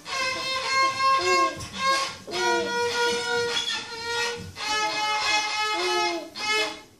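A young beginner's fiddle played solo: a simple tune in held bowed notes that change every half second or so, dying away near the end.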